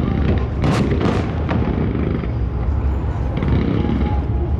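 Fireworks going off: three sharp bangs in quick succession about a second in, over a continuous deep rumble.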